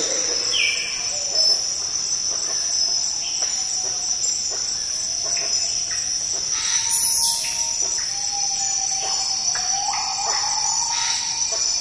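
Rainforest ambience: insects keep up a steady high drone, with short bird calls and whistles scattered through it. A louder, brief sound stands out about seven seconds in.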